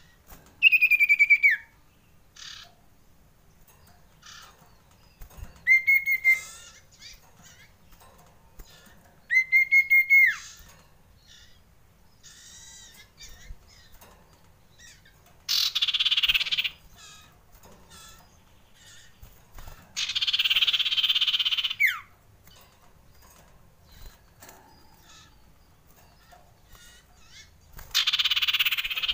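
Common iora calling: three clear whistles, each starting with a stutter and dropping in pitch at the end, then three harsh rasping calls of a second or two, each ending in a quick falling note. These are the frightened alarm calls of a male.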